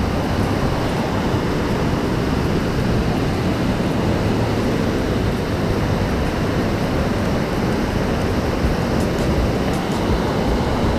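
Steady rush of a waterfall: falling water making an even, loud roar-like noise with no breaks.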